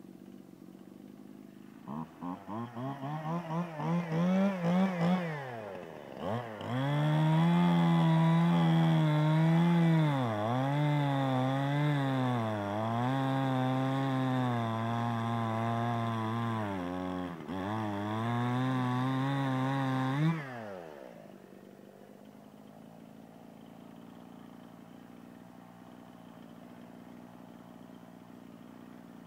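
A Stihl MS 181 two-stroke chainsaw starts up and revs in short rising bursts. It then runs at high revs cutting through a log, its pitch dipping and recovering again and again as the chain bites into the wood. About twenty seconds in it shuts off, the pitch falling away as the engine winds down.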